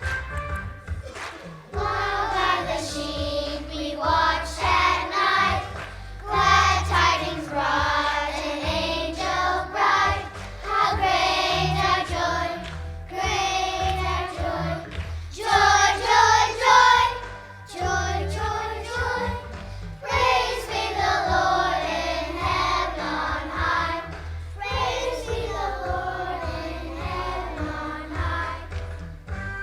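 Children's choir singing a song over a musical accompaniment, in phrases a few seconds long.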